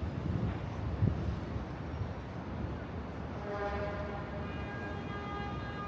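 City traffic rumble heard from above the street, with a steady tone of several pitches coming in about halfway and holding.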